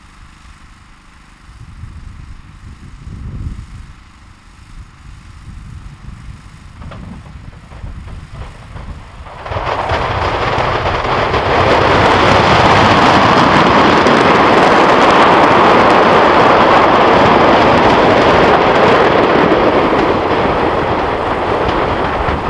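A shipping container packed with 75 mm colour aerial shells burning and going off en masse. Low rumbling gives way, about nine and a half seconds in, to a sudden loud, dense, continuous noise of the load going up, which holds steady to the end.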